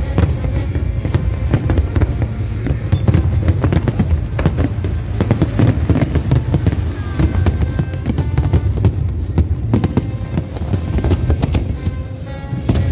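Fireworks display: a dense, continuous run of bangs, pops and crackles with a low rumble beneath, and music playing along.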